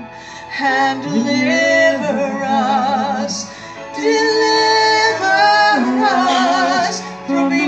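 Two singers singing a worship song together into handheld microphones, with long held notes and a wavering vibrato.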